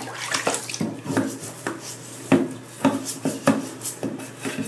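Scrub brush scrubbing mold off a shower curtain in a bathtub: a run of irregular knocks and scrapes, two or three a second.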